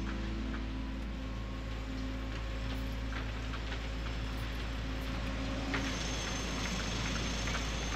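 Steady low rumble of city street ambience, like distant traffic, with a few faint scattered clicks; a brighter hiss joins about six seconds in.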